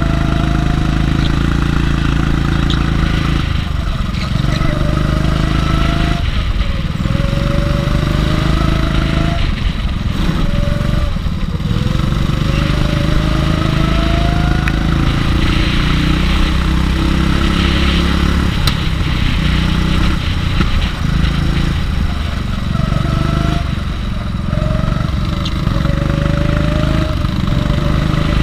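Go-kart engine heard from onboard the kart, running at full throttle in short pulls: its pitch climbs again and again as it accelerates out of the corners and drops back when the driver lifts for the next one.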